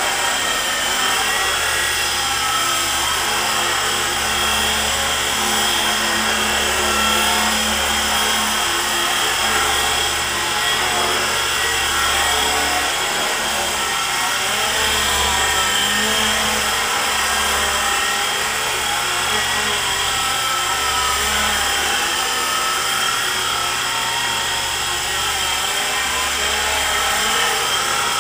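E-flite SR120 micro electric RC helicopter flying in a Bell 412 scale fuselage: a steady electric motor whine and rotor buzz, its pitch wavering up and down as the throttle and tail rotor are worked.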